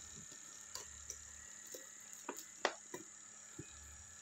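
Craft knife blade scraping and slicing at the packing tape and plastic wrap of a parcel: a scatter of short, faint crinkles and clicks, one a little louder about two and a half seconds in.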